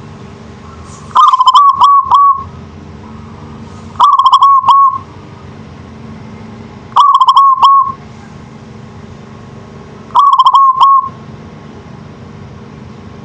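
Zebra dove (local perkutut) cooing its song, four short phrases of quick, clipped notes about three seconds apart.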